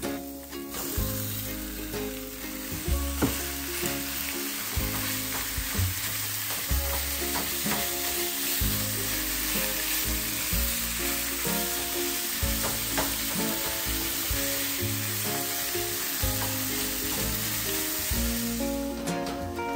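Food frying in hot oil in a pan, sizzling steadily. It starts under a second in and stops shortly before the end.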